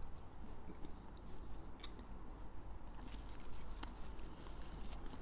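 A person chewing a bite of toasted bread topped with caviar: faint, scattered small crunches and clicks.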